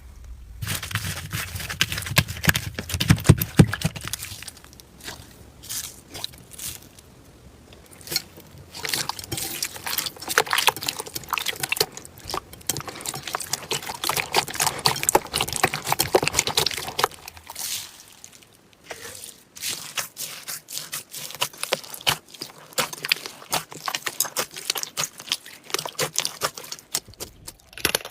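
Slime being squished and stretched by hand: a dense run of wet clicks and pops, with a few short quieter gaps.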